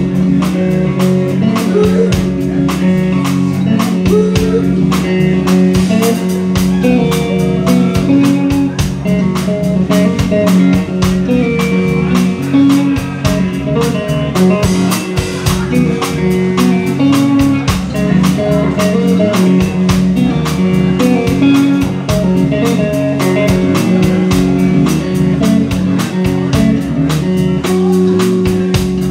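Live blues band playing an instrumental passage: a Telecaster-style electric guitar over electric bass and a drum kit, with no singing.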